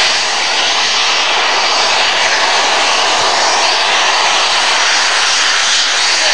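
LNER A3 steam locomotive Flying Scotsman blowing steam from its open cylinder drain cocks: a loud, steady hiss.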